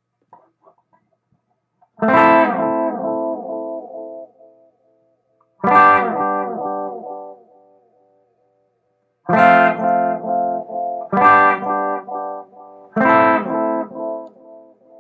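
Electric guitar (Fender Telecaster) strumming chords through a Tachyon delay pedal into a Panama Conqueror amp. There are five chords, each followed by repeats that fade away. The flux knob is at about 8 or 9 o'clock, which gives the repeats about as much dirt as it can before they get out of control.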